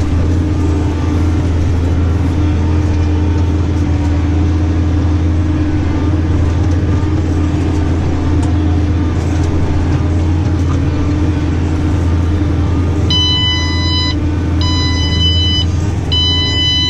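New Holland tractor engine running steadily under load as heard inside the cab: a deep, even drone while it pulls a fertiliser spreader. Near the end an electronic beeper in the cab sounds three times, each beep about a second long.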